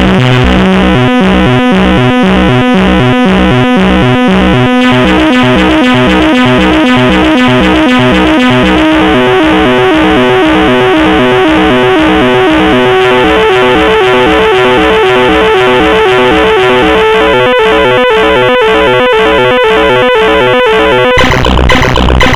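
Loud synthesizer music of rapidly repeating, stepping keyboard notes, changing pattern several times, with a harsher, noisier section near the end.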